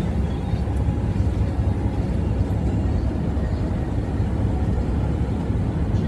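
Steady low rumble of engine and road noise inside a truck cab while driving.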